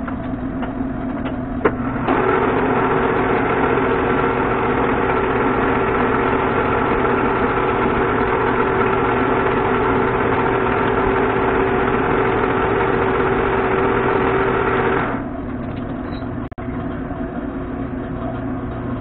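Metal lathe switched on and running with a threaded steel rod turning in its three-jaw chuck while the end is faced off. From about two seconds in, it grows louder with a steady tone as the tool cuts, then near the end it drops back to the quieter sound of the lathe running on.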